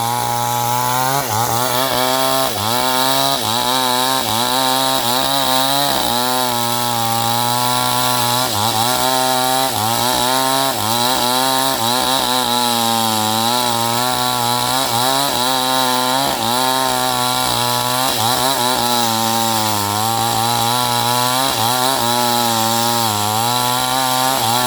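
New West 628 chainsaw running at high revs while cutting wood. Its engine pitch dips and recovers again and again as the chain loads up in the cut.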